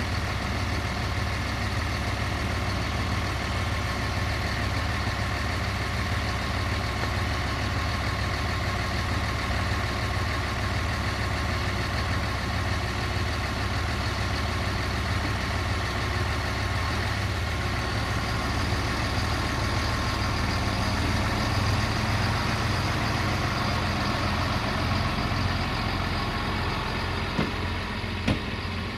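Diesel engine of a Siemens Desiro diesel multiple unit running steadily, a constant low hum with steady tones above it. A faint tone rises slowly in the second half, and two short clicks come near the end.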